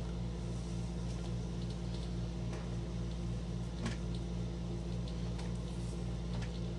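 Steady low electrical hum from a running appliance, with a few faint small clicks.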